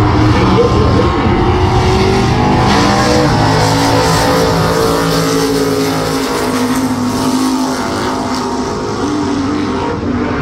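Two Super Stock drag cars with 500 cubic inch big-block V8s running at full throttle down the drag strip, the engine note climbing as they accelerate away and fading toward the end.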